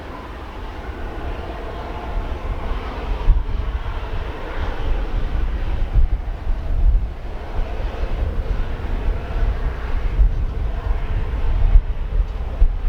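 Jet airliner engine noise growing louder, with strong gusting wind buffeting the microphone in heavy irregular rumbles.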